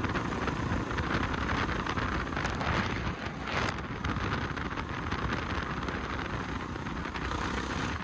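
Honda Foreman 500 ATV's single-cylinder engine running under way, heavily buffeted by wind noise on the microphone.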